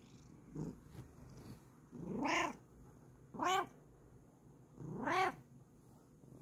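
Bengal cat meowing: three drawn-out meows about a second and a half apart, each rising and then falling in pitch, after a faint short one about half a second in.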